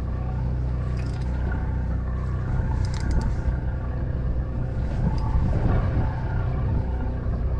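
Steady low drone of a party boat's engine running, with a few light clicks.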